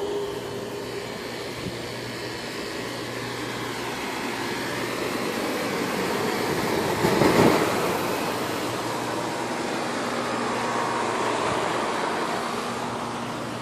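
Several 2005 outdoor heat pump condensing units running in cooling mode: fans blowing over a steady low compressor hum. The sound swells loudest about seven seconds in, when one unit is passed up close.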